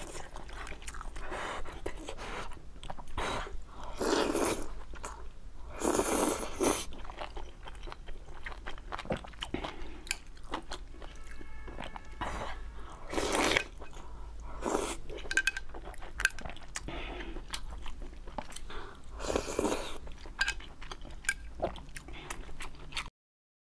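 Close-miked eating sounds: chewing and slurping spicy hot-pot noodles and meat, with many small wet clicks and several louder slurps. The sound cuts off abruptly just before the end.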